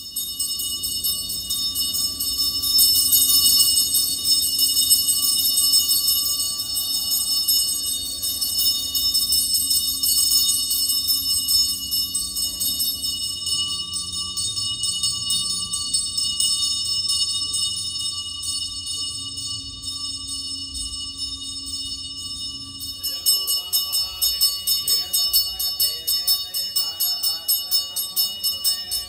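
A brass puja hand bell rung rapidly and without a break. Voices chanting join in, and from about 23 seconds in the ringing swells and fades about twice a second.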